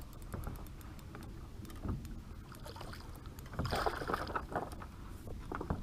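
A hooked yellowtail snapper splashing and thrashing at the surface beside a kayak as it is reeled in, loudest about three and a half to four seconds in, over a low steady rumble of water and wind.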